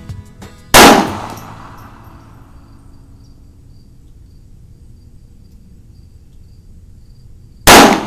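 Two shots from a Browning Medalist .22 LR target pistol, the first about a second in and the second near the end, each a sharp crack with a short echoing tail.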